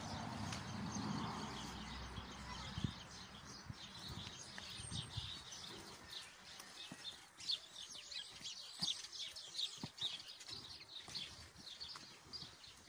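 Songbirds chirping and singing, many short high calls overlapping, busiest in the second half. A low rumble fills the first few seconds, and soft footsteps thud now and then.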